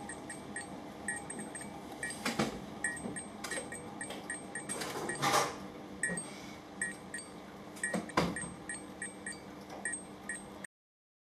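Fluorescent tube glow starter cycling: the bimetal strip in its argon glow discharge opening and closing its contacts, making quick small ticks with a faint ringing and a louder sharp click about every three seconds, over a steady electrical hum. The sound cuts off suddenly near the end.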